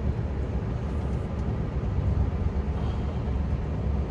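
Scania R500 V8 truck engine running steadily under way, a continuous low drone with a faint hiss of road noise, heard from inside the cab.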